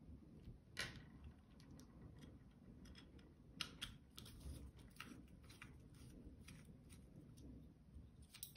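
Faint, scattered light clicks and ticks of a screwdriver backing small screws out of a soldering iron's metal barrel, with a few sharper taps as a loose screw is handled and set on the table.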